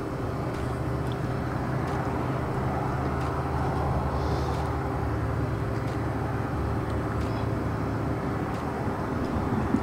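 Steady low mechanical hum with a rushing noise, from a running fan or motor, and a few faint light taps.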